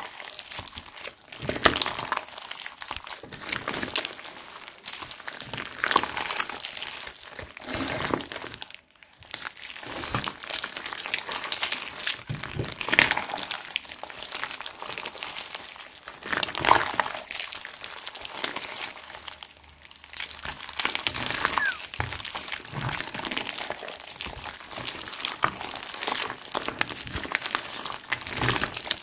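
Hands kneading, squeezing and folding a large mass of slime mixed with clay and beads: a dense, irregular run of small squelches, clicks and pops. Two brief pauses come about nine and twenty seconds in.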